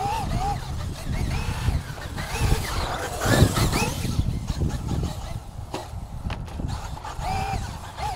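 Traxxas Unlimited Desert Racer RC truck's brushless motor whining in short rising-and-falling bursts as the throttle is blipped, heard from a distance. Wind buffets the microphone throughout, and there is a louder rush about three seconds in.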